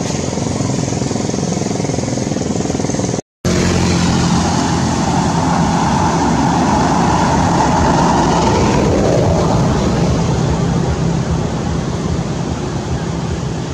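A motor vehicle's engine running nearby, swelling louder in the middle and fading again, with a brief cut to silence a little over three seconds in.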